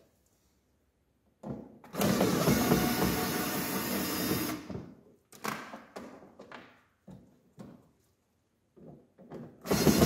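Red cordless drill-driver running, undoing the screws that hold the plastic front wheel arch liner of a Fiat Punto. It runs for about two and a half seconds, a handful of short noises follow, and it starts again near the end.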